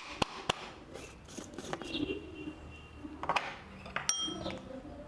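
Spoon scraping and tapping inside a mixer jar as freshly ground powder is emptied into a bowl. A few sharp clicks come near the start, and a short ringing clink of metal or glass comes about four seconds in.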